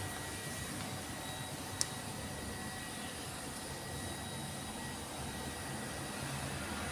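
Steady rushing background noise, with one sharp click about two seconds in.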